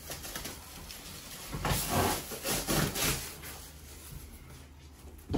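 Movers handling and shifting plastic-wrapped furniture: irregular rustling and rubbing noises, busiest around two to three seconds in.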